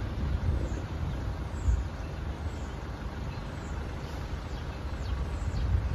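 Low, uneven outdoor rumble with a few brief swells, and faint short high chirps from birds.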